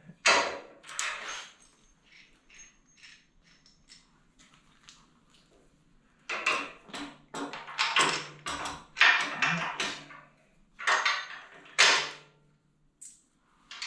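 Metal-on-metal clicks, clinks and rattles from bolts and hand tools as 5/8-inch bolts are fitted into the steering rack mounts on a truck frame. They come in irregular bursts: a few loud ones at first, a faint run of light ticks, then louder clusters through the second half.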